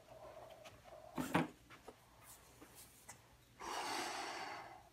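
A person blowing a short puff of air, about a second long, near the end, with a faint tap a little over a second in; the belt sander is not running.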